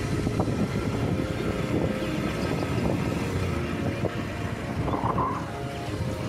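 Steady rumble of a moving vehicle: engine and road noise heard while riding along a paved road.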